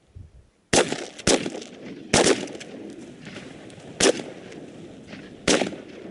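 Shotgun shots at flying geese, five in about five seconds: a quick pair half a second apart, then three single shots, each with a short echo.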